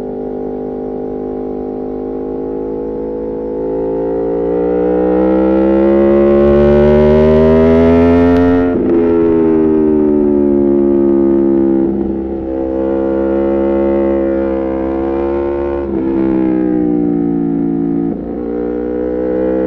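Aprilia Tuono V4 Factory's V4 engine under way through an Arrow GP2 exhaust with the dB killer removed: the revs climb steadily to a peak about eight seconds in, then the note breaks off and falls, with a few brief breaks in it later on.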